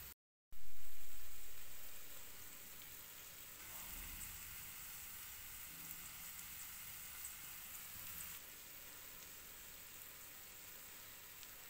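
Chopped onions sizzling in hot fat in an earthenware pan. It is loud just after a brief cut-out at the start and fades into a steady sizzle with small crackles, a little quieter from about eight seconds in.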